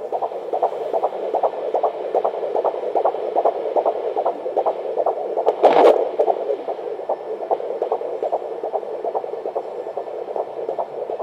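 Fetal heartbeat picked up by a Doppler ultrasound: a fast, even pulsing of whooshing beats, several a second, over steady hiss. A brief louder rush of noise comes about halfway through.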